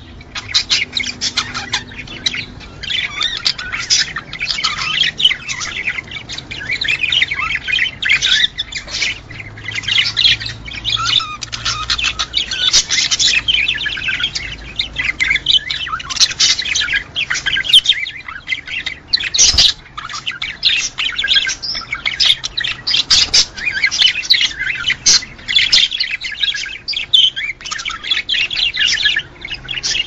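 Budgerigars chattering, a dense, unbroken stream of chirps, warbles and squawks. One sharp click about two-thirds of the way through.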